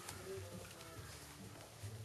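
Background music with held notes at several pitches.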